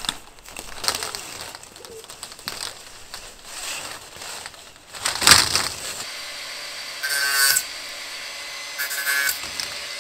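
Flexible corrugated plastic wiring conduit being handled and dragged into a soil trench, with irregular rustling, crackling and scraping and one louder knock a little after five seconds. Near the end come two short buzzing bursts.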